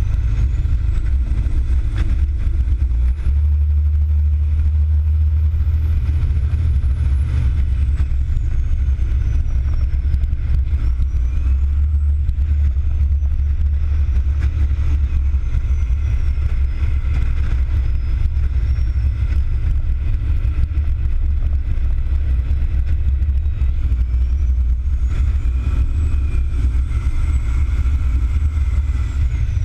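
Fire tanker truck's diesel engine running steadily at road speed, a loud low drone mixed with wind on the outside of the cab. Above it a faint siren winds slowly up and down.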